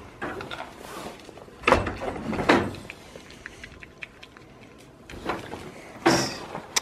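Goats nosing and nibbling right at the microphone, with rustling and a few short knocks, about four in all, as they bump the camera and the wooden pen rails.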